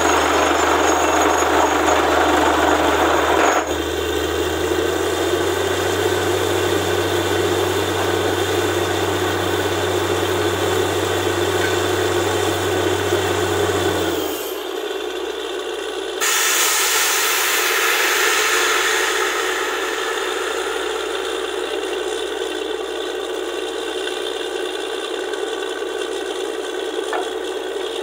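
Borewell drilling rig at work: a steady engine drone under dense grinding and rattling noise. About halfway through, the low drone cuts out abruptly, leaving the rattling noise, which jumps louder a couple of seconds later.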